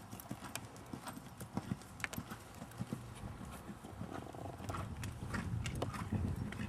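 Hoofbeats of a ridden horse, irregular knocks of hooves on the arena ground, with a low rumble building in the second half.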